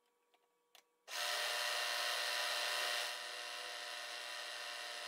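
Milling machine with a half-inch end mill cutting into a metal drive-center blank: a steady cutting noise that starts abruptly about a second in and drops in level about two seconds later.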